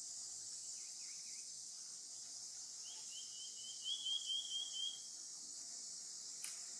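A steady high insect chorus, with a quick run of high chirps about three seconds in that lasts roughly two seconds, and a single sharp click near the end.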